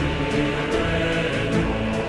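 Background music: held, choir-like tones over a steady beat.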